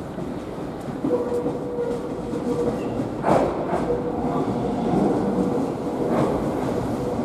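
Electric commuter train of the JR Tsurumi Line heard from inside the carriage while running: a steady rumble with a held tone, slowly getting louder. The wheels knock over rail joints about three seconds in and again near the end.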